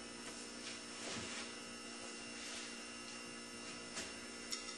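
Steady low electrical hum over quiet room tone, with a couple of faint light clicks near the end.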